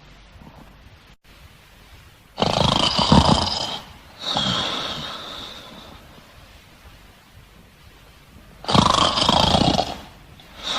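Two loud roar-like bursts about six seconds apart, each lasting about a second and a half and trailing off in a fading echo.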